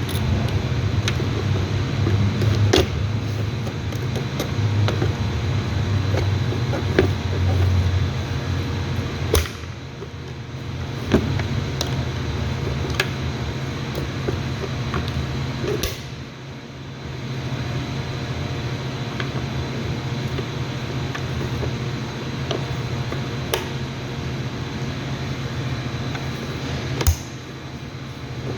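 Scattered clicks and light knocks of the plastic in-tank fuel pump unit being handled and fitted together, over a steady low hum.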